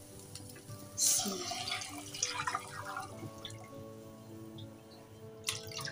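Chicken stock poured from a glass bowl into a hot pan of sautéed corn and vegetables, splashing loudest from about one to three seconds in and then trickling off. Soft background music with held tones plays underneath, and there are a few light clicks near the end.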